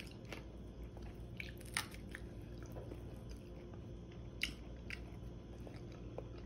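Close-up chewing and biting on crispy air-fried chicken wings, with scattered sharp crunches of the crisp skin; the loudest crunches come about two seconds and four and a half seconds in.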